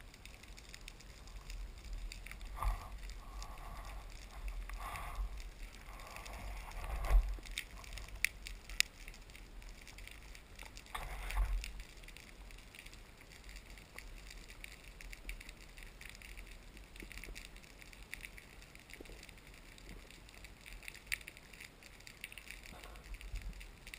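Underwater sound through an action-camera housing on a dive: a steady crackle of scattered clicks over a low water rumble, with a few louder rushing swishes in the first half, the loudest about seven seconds in.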